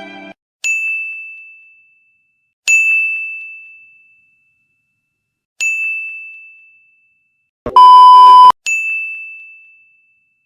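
A ding sound effect: a single high, bell-like tone struck and fading over a second or two, played four times at uneven gaps. Just before the last ding comes a loud, flat beep lasting just under a second.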